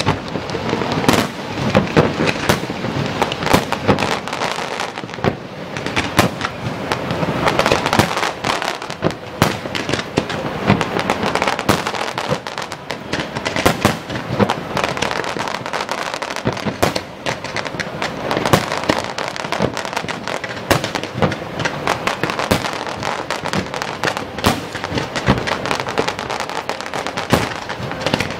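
Fireworks display: aerial shells bursting in rapid succession, a dense, continuous stream of sharp bangs and crackles with no real pause.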